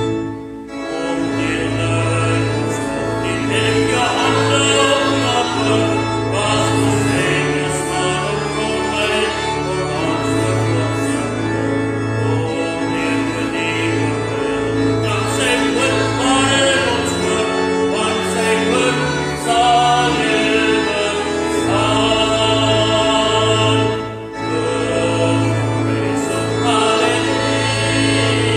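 Worship song: singing over steady instrumental accompaniment with a held bass line, with short breaks between phrases just after the start and about 24 seconds in.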